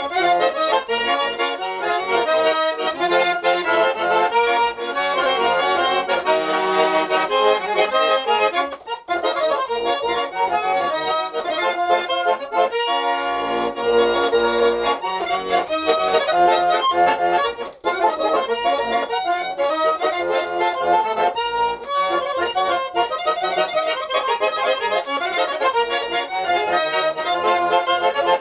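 Nizhny Novgorod garmon (Russian button accordion) played solo, an improvised melody that runs on steadily, broken by two brief pauses about nine and eighteen seconds in.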